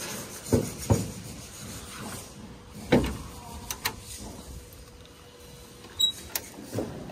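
Sharp clunks and knocks of metal being handled, scattered irregularly, the loudest about half a second, one second and three seconds in.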